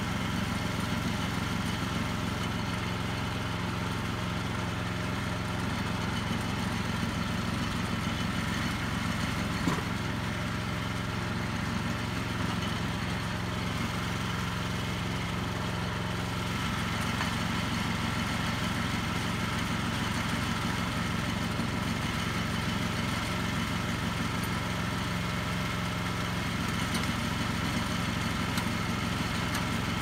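Wood-Mizer LX25 sawmill's gas engine running at a steady speed, with one small knock about ten seconds in.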